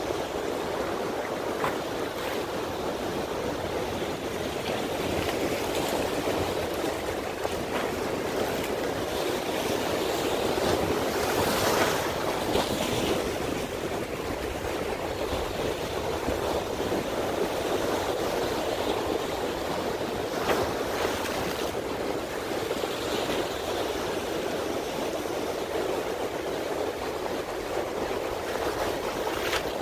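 Channel water washing and splashing against the rocks of a stone jetty, a steady surf rush with a couple of sharper splashes about twelve and twenty seconds in.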